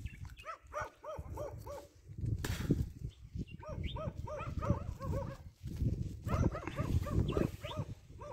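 An animal calling in three bouts of quick, repeated yelping notes, about five a second, over a low rumble.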